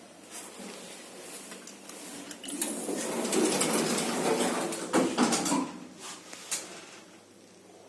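Schindler R series service lift at work: clicks and clanks from its doors and car, with a swell of rumbling about three to five seconds in that fades away after.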